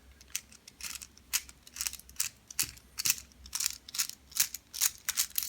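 Light metallic clicks and rattles, irregular at about three or four a second, from an American Lock A1100 padlock being handled and worked just after it has been picked open.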